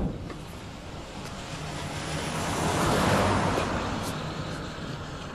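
A vehicle passing by: a steady engine-and-road noise that swells to its loudest about three seconds in and then fades away.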